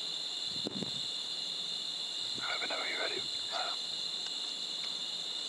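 Steady chorus of night insects, crickets trilling in a continuous high drone. Faint brief rustling noises about two and a half to three and a half seconds in.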